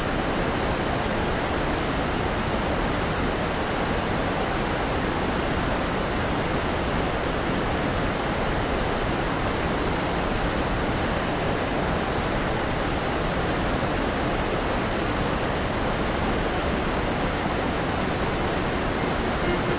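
The Cèze river's whitewater rushing through rocky rapids and cascades, a steady, unbroken water noise.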